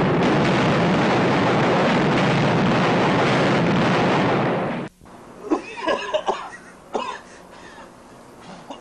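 Dynamite explosion, heard as a long, steady blast of noise that cuts off suddenly about five seconds in. Short wordless vocal sounds follow: a man coughing and groaning.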